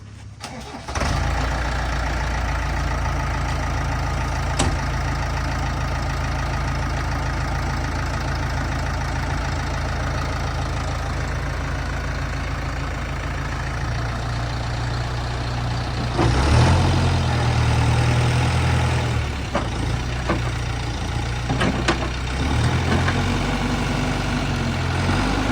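Heavy diesel engine of a backhoe loader running, coming in suddenly about a second in, then revving up louder for a few seconds past the middle, with a few short knocks.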